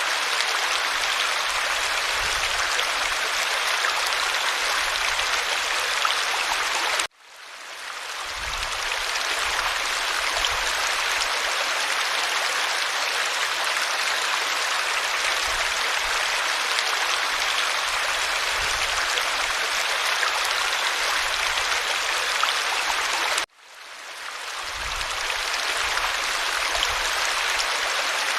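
A creek's water running over stones, a steady even rush. It cuts out suddenly about seven seconds in and again about sixteen seconds later, each time fading back up within a second or two, as at the joins of a looped recording.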